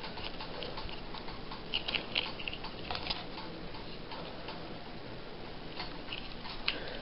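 Cardboard 2x2 coin holders handled in the hand: a few faint scattered taps and rustles over a steady low hiss.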